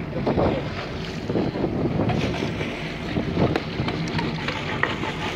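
Wind gusting across the microphone over the wash of sea water along the side of a boat, rising and falling in uneven swells.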